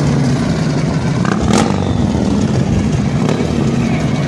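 Cruiser motorcycle with a flame-throwing exhaust running hard at high revs, with one sharp exhaust bang about a second and a half in.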